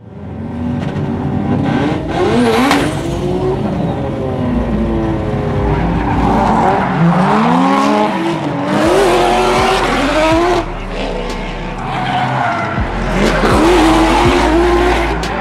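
Drift cars sliding around a track: engines revving hard, their pitch climbing and dropping again and again, over tyre squeal and skidding.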